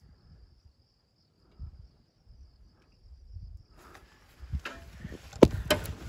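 An insect, likely a cricket, trills in one steady high tone over faint low rumble. About four seconds in the trill stops and rustling with sharp knocks takes over, as someone moves through grass, with one louder knock near the end.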